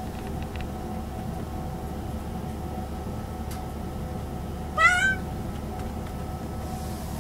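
A cat gives one short meow about five seconds in, rising slightly in pitch.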